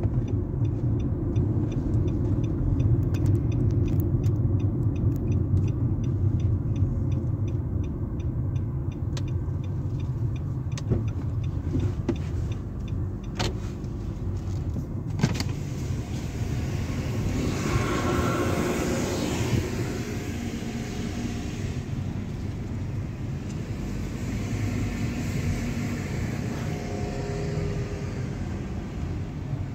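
Car driving slowly, heard from inside the cabin: a steady low engine and road rumble, with a fast regular ticking through the first half. About two-thirds of the way in, a louder whooshing swell rises and fades.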